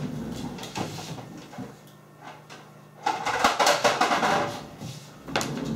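Handling noise as a handheld digital multimeter is picked up and moved over a wooden desk: a rustling, scraping stretch in the middle and a sharp knock near the end.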